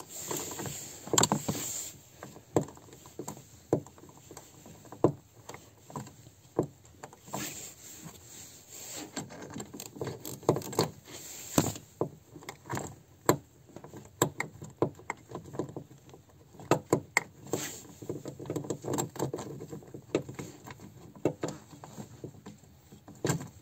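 Irregular metallic clicks, knocks and rattles of a Lada Kalina door check strap and its mounting being worked loose by hand inside the door.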